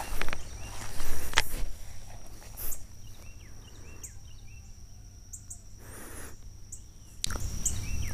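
Footsteps crunching through dry leaves and brush for the first couple of seconds, then a quieter stretch with small birds chirping over a steady high insect drone. About seven seconds in, a louder rumbling rustle starts up again.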